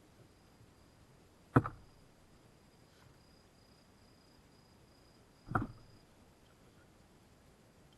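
Burning firewood in a campfire popping twice, two sharp cracks about four seconds apart, over a faint high insect trill.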